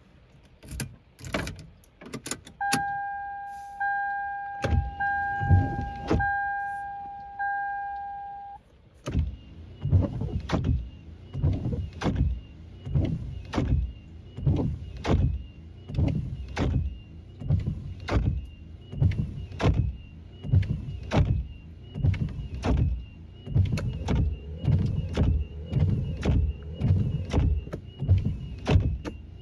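A car's warning chime rings repeatedly for several seconds. From about nine seconds in, windshield wiper blades sweep back and forth across the rain-wet glass, each pass making a loud rubbing noise in a steady rhythm. Wipers can make this noise even when the blades are in good condition.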